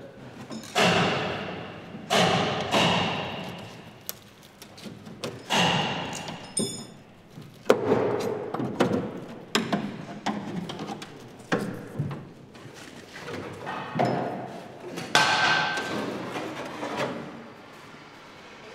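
Irregular knocks and clanks from work on a stripped car body shell: about a dozen separate strikes, each followed by a short ringing decay.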